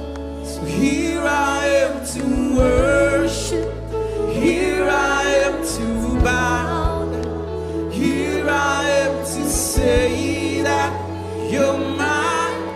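Gospel worship song: a singer's voice over held keyboard chords and a steady bass, in phrases a second or two long.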